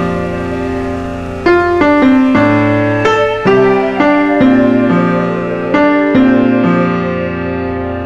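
Background piano music: a slow, gentle piece of held chords and single notes, a new note struck about every half second to a second, each ringing and fading.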